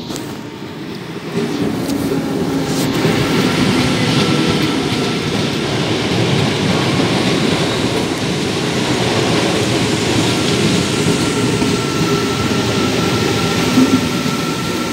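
NS Sprinter electric train running past the platform close by, the rumble of wheels on rail building up over the first two seconds and then holding steady, with a steady high tone over it.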